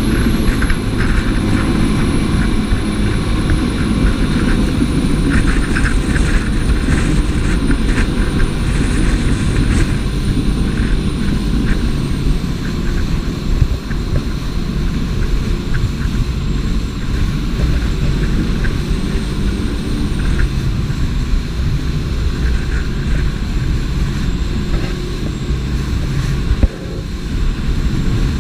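Jet boat running steadily: a constant engine drone mixed with water and wind noise. About three quarters of the way through comes one sharp knock, and the level dips briefly after it.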